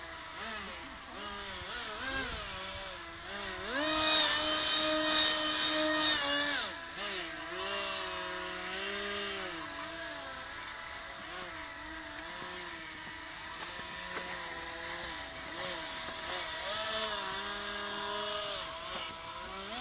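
Radio-controlled cars and an RC hovercraft driving on ice, several motors whining at once, their pitch rising and falling with the throttle. The whine is loudest and highest from about four to six and a half seconds in.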